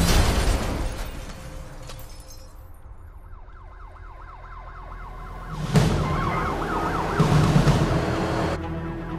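The rumble of an explosion dies away, then several police sirens wail and yelp, overlapping. A heavy boom comes a little past halfway, and another loud burst follows about a second and a half later.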